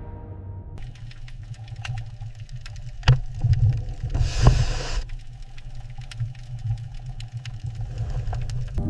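Underwater ambience: a steady low rumble with scattered clicks, a sharp click about three seconds in, and a brief hissing rush about four seconds in.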